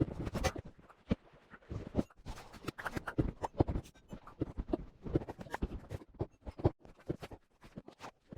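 A busy, irregular patter of short clicks and light knocks, several a second, with no steady rhythm.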